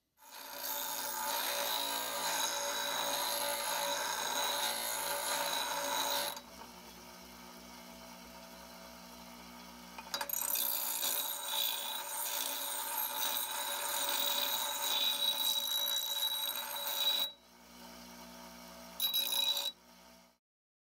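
Bench grinder running with a steady pitched whine as an old steel axe head is pressed against the wheel. There are two long stretches of grinding and a short one near the end, with the machine running more quietly in between, and the sound cuts off suddenly.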